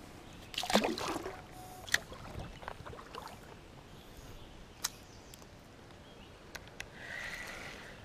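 A small smallmouth bass released into a shallow creek, splashing into the water about half a second in. Faint water sloshing and a few light clicks follow.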